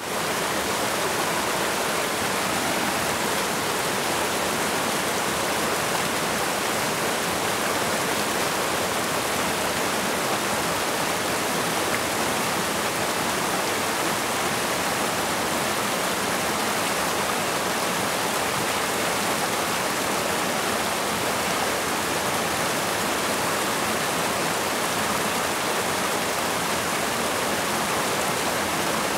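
Rocky stream rushing over boulders in small cascades: a steady, even rush of water.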